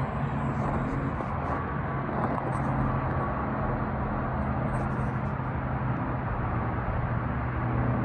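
Steady low hum under an even rushing background noise, unchanging throughout.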